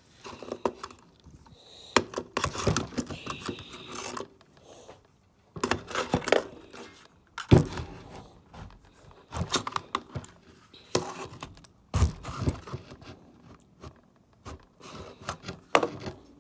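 Irregular knocks, scrapes and rattles of hard objects being struck and handled, with a few sharper thuds spaced out between quieter gaps.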